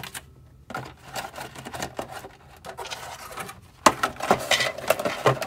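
Rigid clear plastic packaging tray being handled: a run of crackling and small clicks, with a few louder knocks near the end.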